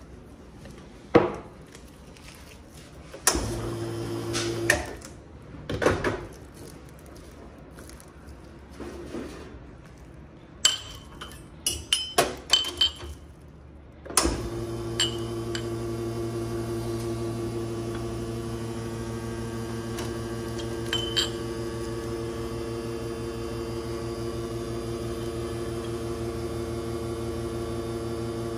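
Espresso machine pump running steadily as shots are pulled into two cups, a steady hum from about halfway. Before that, sharp knocks and metal clicks of the portafilter and cups being handled, with a brief burst of the same hum early on.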